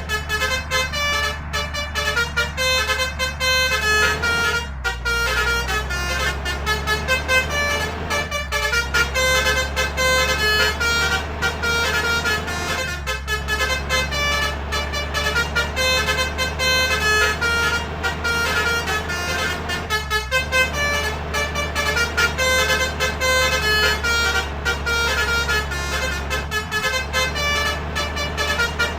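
Telolet basuri horn on a bus, playing a rapid tune of short notes with a few brief breaks. Underneath runs a steady low drone of engine and road noise.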